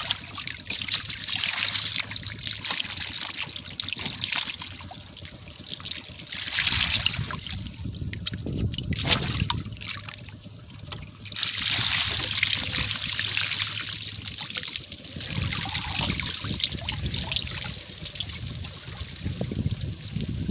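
Shallow water splashing and trickling as hands work a woven bamboo fish trap in it. The sound comes in repeated swells that rise and fade every few seconds.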